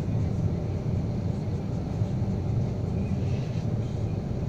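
Steady low rumble of a car in motion, heard from inside the cabin: engine and tyre-on-asphalt noise.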